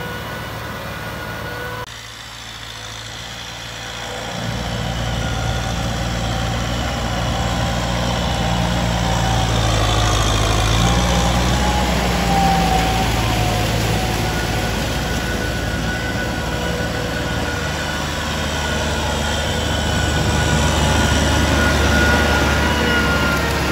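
Kubota M6040 tractor's diesel engine running hard, its pitch rising and falling. It drops briefly about two seconds in, then builds louder from about four seconds.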